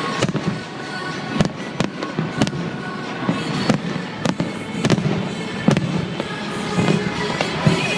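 Fireworks display: aerial shells bursting in quick, irregular succession, about ten sharp bangs over a continuous crackling rumble.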